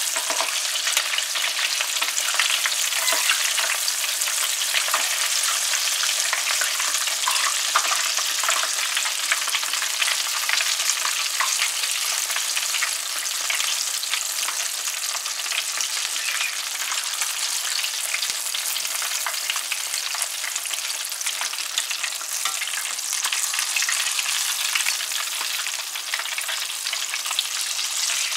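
Flour-coated chicken wings deep-frying in hot oil at medium heat: a steady, dense sizzle full of fine crackling.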